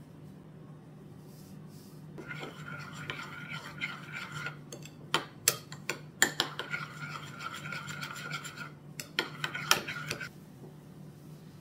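Metal spoon stirring a thick creamy sauce in a small glass bowl: a steady wet scraping that starts about two seconds in, with several sharp clinks of the spoon against the glass in the middle, stopping shortly before the end.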